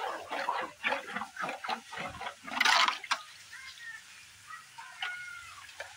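Standing rainwater splashing and sloshing in a shallow puddle on a flat roof: a quick, irregular run of splashes, with one louder splash about two and a half seconds in, then quieter.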